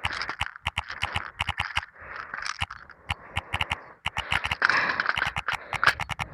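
Close scraping and rustling with many irregular sharp clicks, growing louder a little past the middle.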